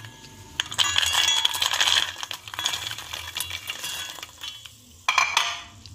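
Rapid metallic clinks and rattles of a spoon and peanuts in a stainless steel bowl as batter-coated peanuts are stirred, busiest through the first four seconds, then a short pause and a few louder clinks near the end.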